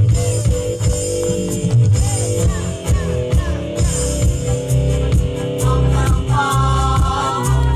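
Loud backing music with a heavy bass line and a steady beat, accompanying a women's choir; about six seconds in, a higher held melody line, the women's voices, comes in over it.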